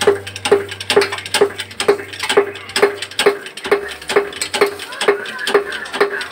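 Hand-pumped hydraulic shop press being worked to press out a pivot pin: a sharp click with a short squeak at each pump stroke, evenly repeated a little over twice a second.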